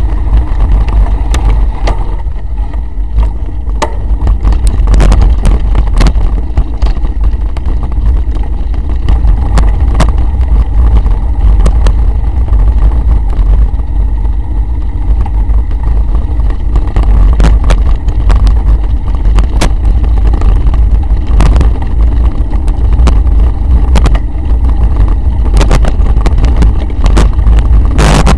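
Wind buffeting the microphone of a bike-mounted action camera as a mountain bike rides over a dirt trail: a constant deep rumble with frequent short knocks and rattles from the bumpy ground.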